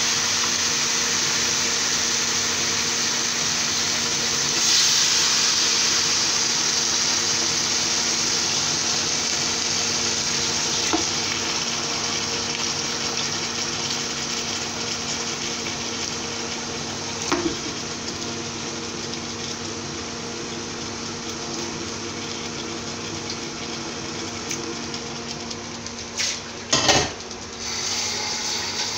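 Raw chicken pieces sizzling in hot oil with fried garlic and onion in a pot. The sizzle surges about five seconds in and then slowly eases, over a steady hum from the induction cooker. A few knocks of a utensil against the pot are heard, the loudest near the end.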